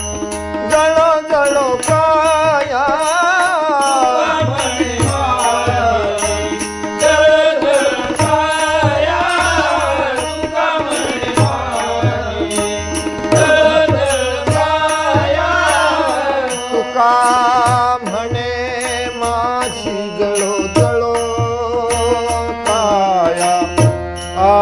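Marathi devotional abhang music: harmonium and tabla with small brass hand cymbals (taal) keeping a steady beat under a slow, drawn-out sung melody with wavering held notes.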